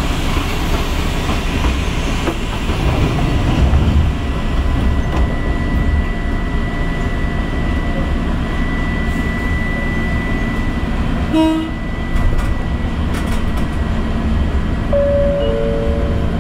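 Running noise of a passenger train heard from inside the car: a steady rumble of wheels on rail with some clickety-clack and a thin steady whine through the middle. Near the end a two-note falling chime sounds.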